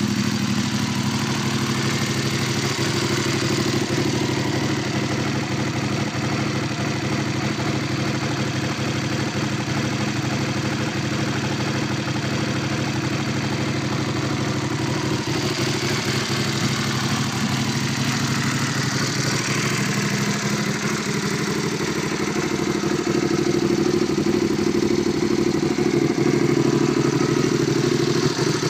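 Aprilia Caponord 1200's 90° V-twin engine idling steadily through an Arrow titanium exhaust, a little louder in the last few seconds.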